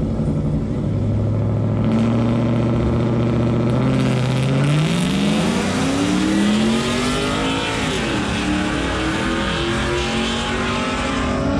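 Pickup truck engine held at steady revs on a drag strip start line, then launching about four seconds in: the pitch climbs steeply, dips once at a gear change, and climbs again as the truck pulls away down the strip.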